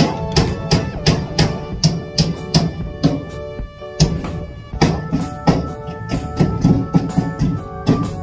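Music with a steady beat of percussion strikes over sustained melodic tones.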